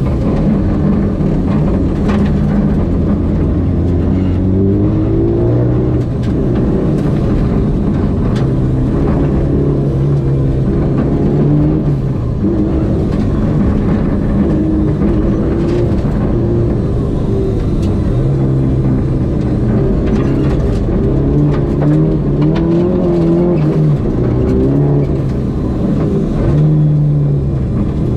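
Mazda 323 GTR rally car's turbocharged four-cylinder engine heard from inside the cabin, revving up through the gears and easing off again and again at speed on gravel. Scattered sharp clicks of gravel striking the car sound over the engine.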